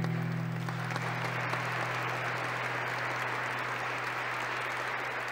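Audience applauding steadily, with a low steady hum underneath.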